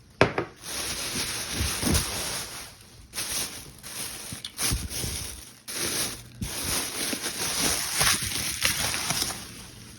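Plastic grocery bags rustling and crinkling as items are pulled out of them, in irregular handling bursts with brief pauses.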